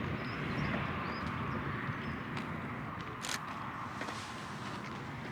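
Steady outdoor background noise, heaviest at low pitch, with one sharp click a little past the middle.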